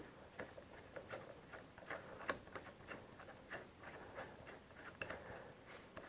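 Faint, irregular metal clicks and ticks as an L-shaped hex key turns a socket head cap screw into the cast-iron clapper box of an Alba 1A metal shaper, the key shifting in the screw head at each turn.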